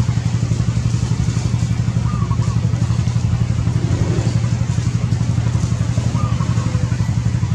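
A small engine idling steadily: a low hum that pulses rapidly and evenly, several beats a second.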